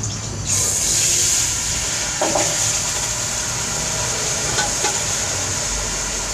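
Boiled mutton pieces dropped into hot cooking oil, which sets off a loud hissing sizzle about half a second in that keeps going steadily. There is a single knock about two seconds in.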